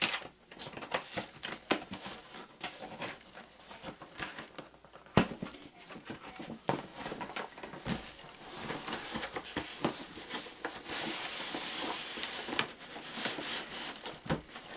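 Cardboard box of a model-train set being handled and opened: scraping, rustling and tapping of the cardboard flaps and packaging, with one sharp knock about five seconds in and a longer stretch of sliding, rubbing noise in the second half.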